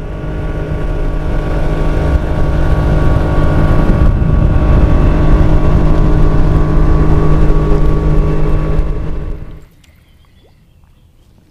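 A 50-horsepower outboard motor running steadily at speed, pushing a boat on plane, with the rush of water and air over it. It stops abruptly about nine and a half seconds in, leaving only faint background sound.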